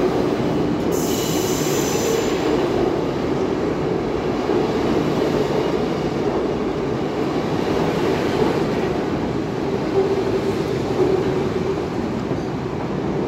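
Z 20900 double-deck RER C electric train pulling out of the station: steady rumble of wheels on rails as the cars pass, with a brief high wheel squeal about a second in.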